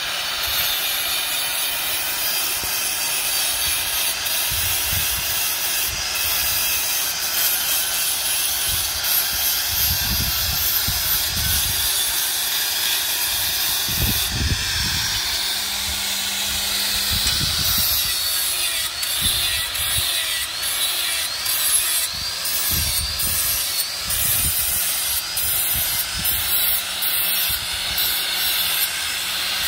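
Handheld angle grinder running with its disc ground against the steel edge of a cleaver blade, sharpening it: a continuous grinding whine whose pitch drifts up and down as the disc is worked along the edge.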